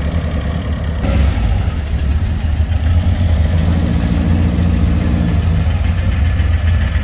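Air-cooled flat-four engine of a VW Beetle, running at low speed as the car drives slowly past close by.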